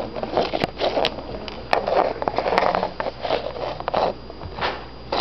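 Writing strokes on a classroom board: a run of short, irregular scratchy strokes with sharp taps, as lines are drawn on a timing diagram.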